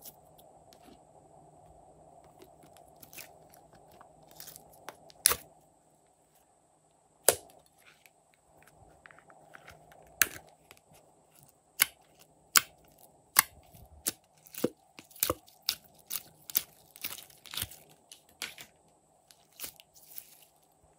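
Slime being squeezed and stretched by hand, giving sharp pops and clicks as trapped air bursts. There are a few single loud pops, then a steady run of pops about one every second over the second half.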